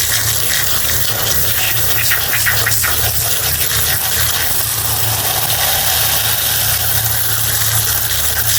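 A small motor running steadily: a constant low hum with an even hiss over it.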